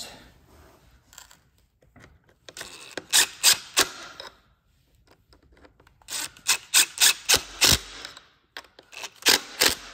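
Hand driver turning the wraparound handle's bolts into a Stihl MS 650 chainsaw housing: three runs of sharp, quick clicks with short pauses between them.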